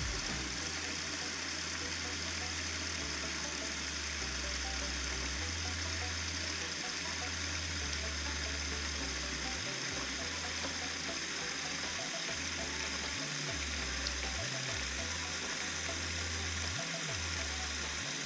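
Bathroom faucet running steadily into a wall-hung lavatory sink, the water draining through a newly fitted 1¼-inch pop-up drain during a leak test.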